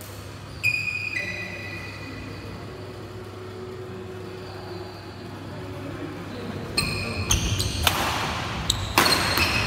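Badminton rally on a wooden indoor court: sharp racket strikes on the shuttlecock and squeaks of court shoes, starting about seven seconds in. Before that, a couple of short squeaks near the start, then a quieter stretch between points.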